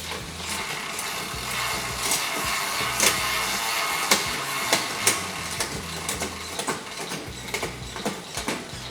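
Background music with irregular sharp mechanical clicks and ticks from bicycle parts being worked on during assembly.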